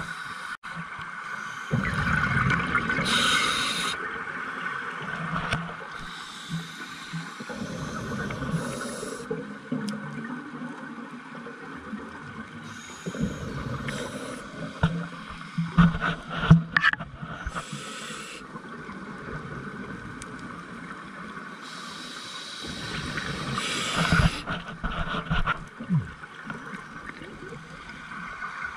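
Scuba diver breathing through a regulator underwater: a hiss on each inhale and a low bubbling gurgle of exhaled bubbles, repeating over several breaths.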